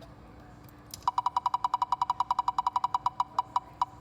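Computer spinner wheel's tick sound: rapid clicks about a second in that slow down steadily as the wheel coasts to a stop.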